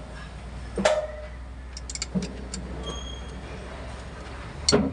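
Metal hand tools clinking on the truck's A/C compressor mounting bolts: a sharp metallic knock about a second in and a louder one near the end, with light ticks between. A steady low hum runs underneath and stops near the end.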